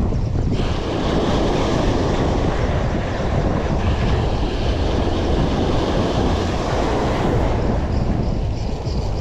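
Wind buffeting the microphone with a steady rushing of sea water around the boat.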